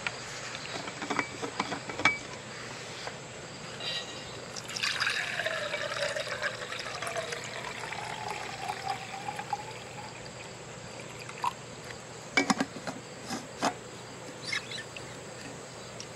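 Water being poured into a container, the pitch rising as it fills, for about five seconds. Then several sharp clicks and knocks.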